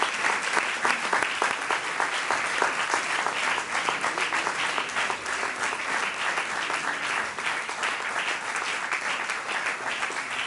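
Congregation applauding: many people clapping steadily together.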